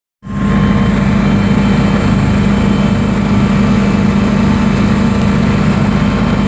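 Helicopter cabin noise: the engine and rotor running with a steady, loud drone and a strong low hum that holds unchanged.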